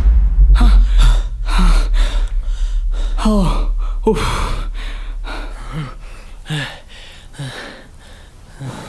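A man gasping and panting heavily in short sharp breaths, some voiced, waking with a start. Under it a deep rumble fades out over the first six seconds or so.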